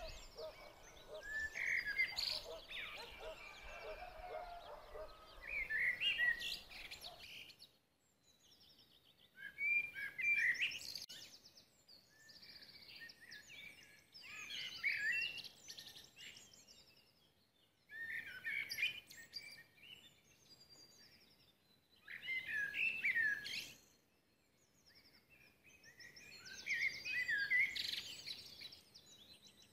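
A songbird singing in short bursts of rapid chirps and trills, one burst about every four seconds with brief quiet gaps between.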